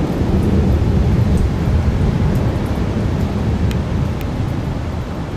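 Thunder rolling from a lightning storm: a low rumble that swells over the first second or two and slowly fades. Beneath it is a steady wash of surf and wind noise on the microphone.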